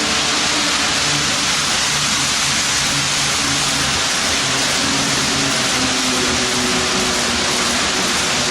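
HO-scale model train running on the layout: a steady rushing noise with a faint hum underneath that shifts slightly in pitch.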